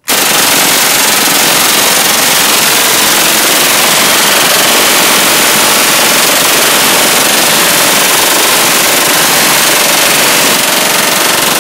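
American 180 submachine gun firing full-auto in one long unbroken burst at about 1,400 rounds a minute, running through its 250-round pan magazine. The fire starts abruptly and holds an even level without a pause.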